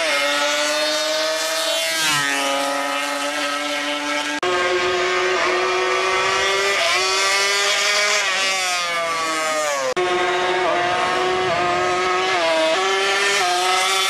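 Racing ATV engines revving hard during burnouts. The high pitch wavers and bounces up and down, and there are two abrupt changes in sound about four and ten seconds in.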